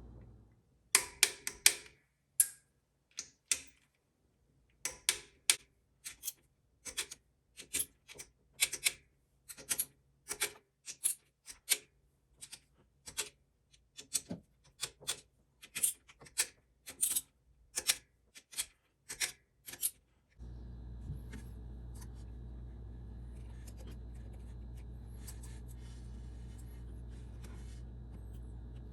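Ratchet wrench clicking in short, irregular strokes as bolts are run down on a Ford small-block engine. About two-thirds through, the clicking gives way to a steady low hum with a few faint clicks.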